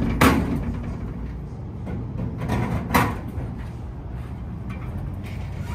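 Plastic dome strainer being set onto a roof drain and twisted into place: a sharp clack about a quarter second in, then scraping and knocking about two and a half to three seconds in, over a steady low rumble.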